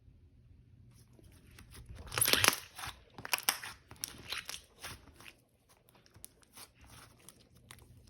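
Slime being squished and stretched by hand, giving dense crackling and popping clicks, loudest about two seconds in and tapering toward the end.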